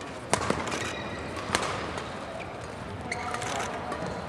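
Badminton rally: racket strings striking a shuttlecock with sharp cracks, a strong hit about a third of a second in and another about a second and a half in, with fainter ticks later, over the low steady noise of an arena hall.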